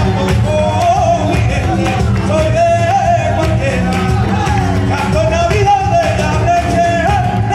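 Live flamenco-style song: a male singer holds a wavering, ornamented melody over steady rhythmic hand clapping (palmas), with instrumental accompaniment and a full low end.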